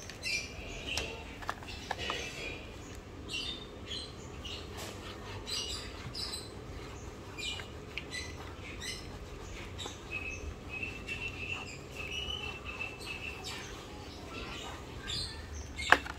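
A plastic blister card being handled and worked open by hand: scattered crinkles, scrapes and small clicks, with high chirps throughout and one sharp click near the end.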